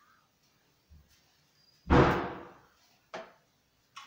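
A loud knock about two seconds in that dies away over most of a second, then a sharper, shorter knock about a second later and another near the end: a metal wall-shelf frame being knocked into place against the wall.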